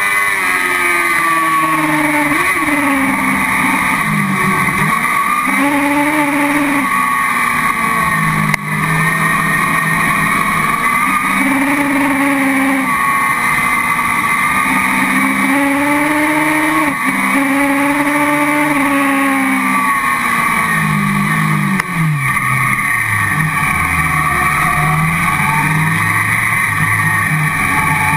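Car cross buggy's motorcycle-derived engine heard from onboard, revs climbing and falling again and again through corners and gear changes, over steady road and wind noise. About three-quarters in the revs drop sharply and stay lower as the car slows.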